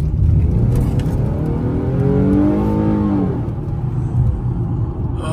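Infiniti G37's V6 engine running with low road and engine rumble in the cabin, its note rising and falling once partway through as the car speeds up and eases off.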